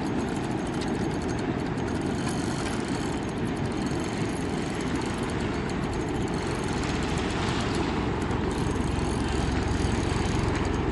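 Steady rushing noise of fast river current, with wind buffeting the microphone, growing a little louder near the end.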